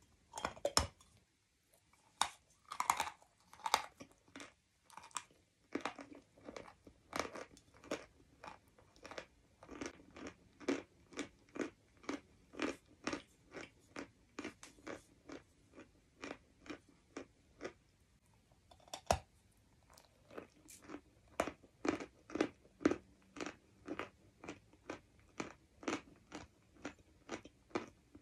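Biting into a large lump of dry chalk, then chewing it with crisp crunches, about two a second, picked up close on a clip-on microphone. About two-thirds through the chewing pauses briefly, then one sharp crack and the crunching resumes.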